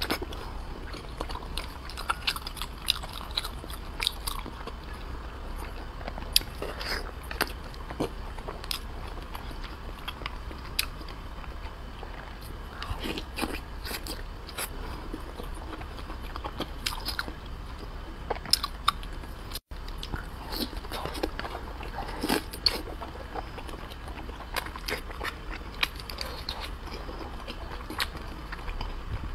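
Chewing and biting of soft, fatty braised pork belly, with irregular mouth clicks throughout, over a steady low hum.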